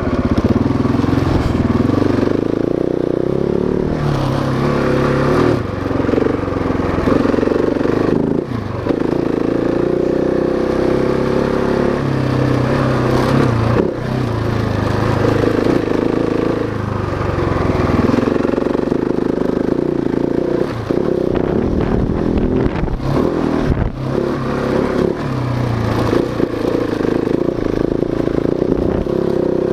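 Husqvarna 701 Enduro's single-cylinder engine under way on a dirt trail, its pitch repeatedly climbing as it accelerates and dropping back as the throttle eases.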